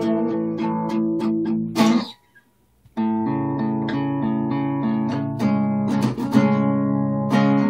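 Acoustic guitar being played, a run of picked and strummed chords. It breaks off about two seconds in, drops to near silence for about a second, then resumes.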